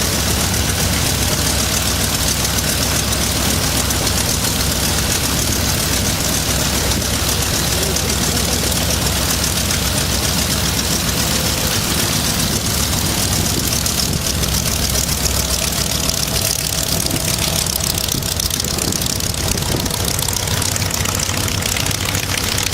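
A Zero fighter's Nakajima Sakae twin-row radial engine running steadily at idle, a fast, even chug of firing pulses with no change in pace.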